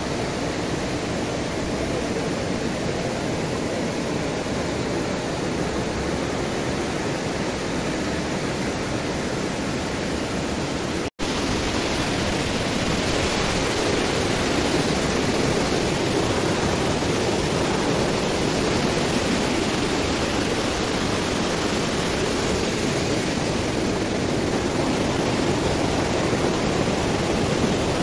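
Water pouring over the spillway of a small concrete check dam, a steady rushing that cuts out for an instant about eleven seconds in.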